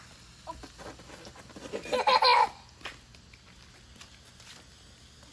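A child laughing briefly about two seconds in, loud and high, over a quieter outdoor background.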